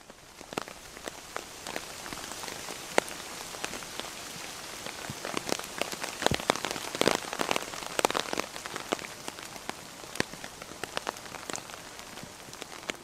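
Rain falling on a tent flysheet: a steady hiss with many heavy single drops tapping the fabric, thickest around the middle. It fades in over the first second.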